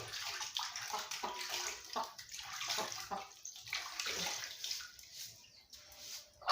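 Hands being washed in water: irregular splashing and trickling.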